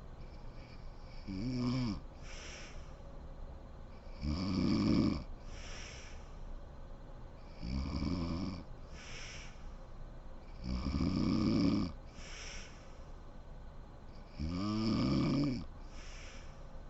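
A woman snoring in her sleep: five snores, about one every three seconds, each followed by a short breathy exhale.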